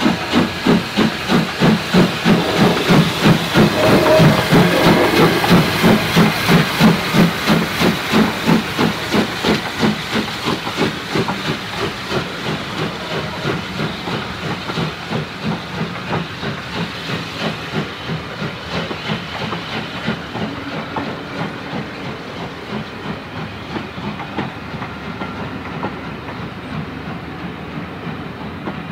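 Caledonian Railway 439 Class 0-4-4T steam tank engine working hard past, its exhaust chuffing in rapid, even beats, loudest about four to six seconds in. The beats then fade as it pulls away and the coaches roll by.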